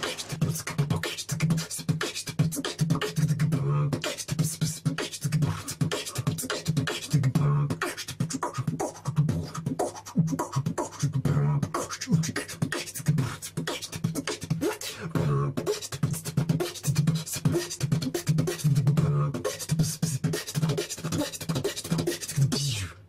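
Music with a dense, rhythmic percussive beat over a repeating low bass line, cutting off near the end.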